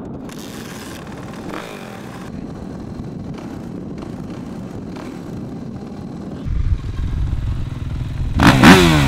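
Suzuki motocross bike's engine firing up about two-thirds of the way in and running with a loud, low rumble, then revved hard near the end, its pitch climbing sharply.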